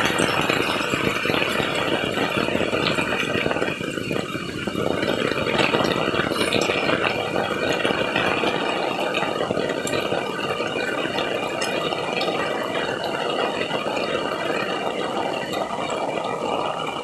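Steady rain falling, a dense hiss made of many small drops.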